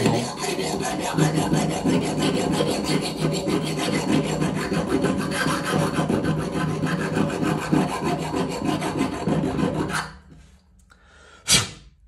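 Leatherman Rebar's multitool file rasping back and forth over metal for about ten seconds, its aggressive side filing down to bare metal. The filing stops, and one sharp click follows near the end.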